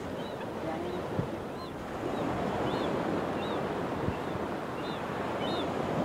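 Steady ocean surf and wind noise, with short, faint, high calls repeating about once a second.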